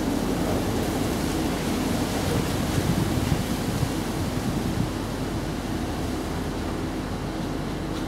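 Steady rushing outdoor background noise with a low rumble, swelling slightly a couple of seconds in.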